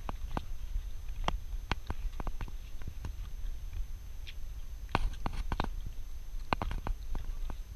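Handling noise from a handheld camera carried through a room: irregular light clicks and knocks, the strongest about five and six and a half seconds in, over a steady low rumble.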